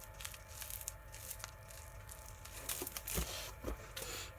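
Light handling noises of packaging and small plastic glitter pots: soft crinkling with scattered small clicks and taps, and a louder rustle about three seconds in.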